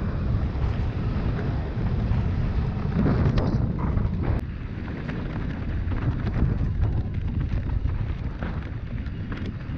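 Wind buffeting the microphone of a bike-mounted or helmet camera as a mountain bike rolls fast down a dirt singletrack, with a steady low rumble of tyres on dirt and a few knocks and rattles over bumps, a handful of them together about three to four seconds in.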